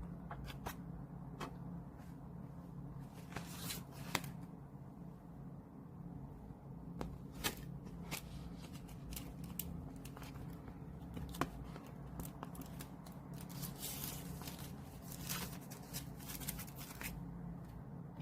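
Paper and plastic album packaging being handled: scattered small clicks and short rustles, busiest near the end, over a steady low hum.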